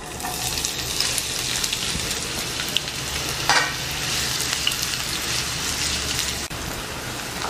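Finely chopped onions sizzling in hot oil in a pan: the sizzle starts suddenly as they go in and holds steady, with a brief scrape about three and a half seconds in.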